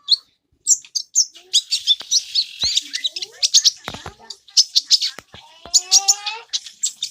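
A caged kolibri ninja (konin), a small sunbird, singing: a fast, continuous run of high chirps and twitters, with a few sharp clicks mixed in.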